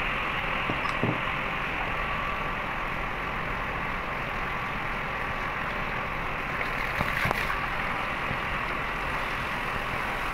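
Steady running noise of plant machinery, an even hum and hiss with no change, broken by a couple of faint metallic clinks about a second in and again around seven seconds.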